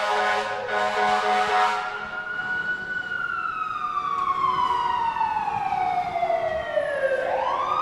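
Fire truck siren wailing: a slow rise, a long slow fall, then a rise again near the end. Two loud horn blasts sound over it in the first two seconds.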